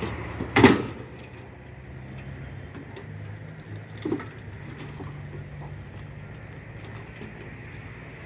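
Two-stroke chainsaw engine idling with a low, steady hum. A sharp knock about half a second in is the loudest sound, and a softer knock follows about four seconds in.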